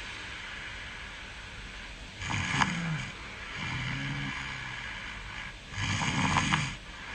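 A sleeping person snoring: two loud snores about three and a half seconds apart, with a quieter breath between them.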